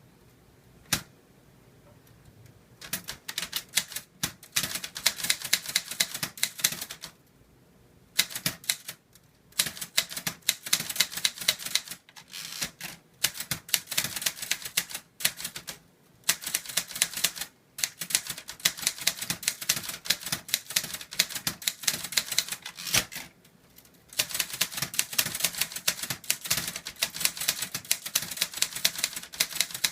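Hangul typewriter being typed: one lone key strike about a second in, then fast runs of key strikes from about three seconds in, broken by short pauses.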